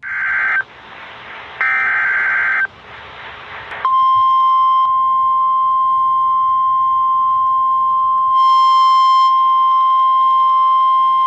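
NOAA Weather Radio alert signalling: two short raspy bursts of SAME header data, then a single-pitch 1050 Hz warning alarm tone that starts about four seconds in and holds steady, announcing that a warning broadcast follows.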